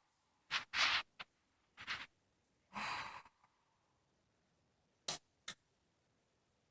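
Unusual snoring: a run of short, hissing breath sounds, several close together in the first three seconds, the longest about half a second, then two brief ones near the end.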